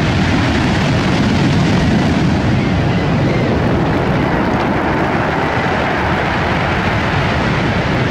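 Steady, loud roar of rough surf washing over a pebble beach.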